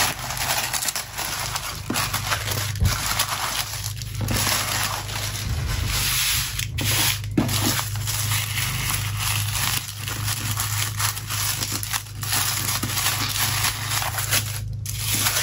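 Thin tissue paper rustling and crinkling unevenly as a wrapped package is handled, unsealed and unfolded.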